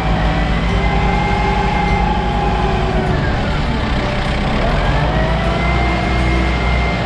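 Heavy vehicle engine running steadily, with a whine on top that drops in pitch about three seconds in and climbs back up a couple of seconds later.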